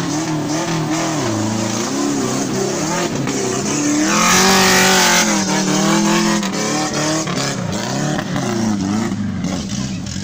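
Small 4x4's engine revving up and down again and again as it crawls through a deep muddy rut, with its highest revs and a loud rush of noise about four seconds in.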